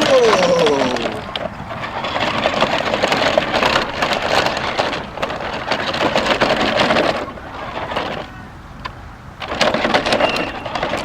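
Large toy RC pickup truck running over rough park ground, its tyres giving a gritty crunching, crackling noise. The truck's electric drive gives a short falling whine about a second in. The noise drops away for about two seconds near the end, then starts again.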